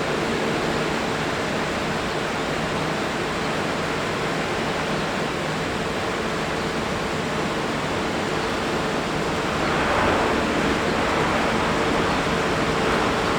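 Jet airliner engines running: a steady rushing noise with a held hum-like tone, swelling slightly near the end.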